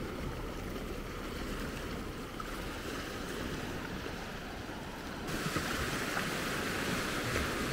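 Small ocean waves breaking and washing up over shallow wet sand, a steady hiss of surf over a low rumble. About five seconds in, the hiss of the water grows louder.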